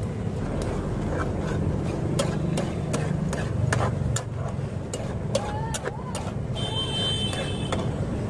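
Metal spatula clinking and scraping against a large steel pan as Maggi noodles are stirred and turned, with repeated sharp clinks. Steady low rumble of road traffic underneath.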